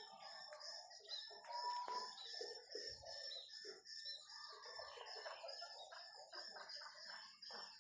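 Faint ambient bird calls: chickens clucking, with small birds chirping over them throughout.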